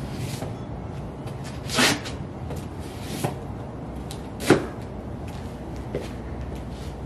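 Sheepskin Ugg boots scuffing and stepping on a concrete floor: a short scrape about two seconds in, a sharper, louder step about four and a half seconds in, and a couple of soft taps between, over a steady low background rumble.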